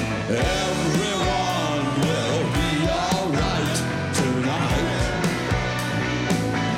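Live rock band playing at full volume, with a drum kit, electric guitars and bass, and a voice singing over it.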